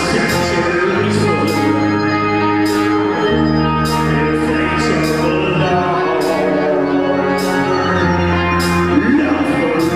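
Live rock band performance: held keyboard chords over long low bass notes, with a man singing and short bright hits from the drum kit's cymbals.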